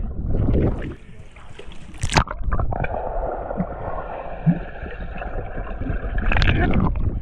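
Pool water heard from underwater: muffled rushing and bubbling, with a sharp splash about two seconds in and another loud plunge with a rush of bubbles near the end as swimmers jump in.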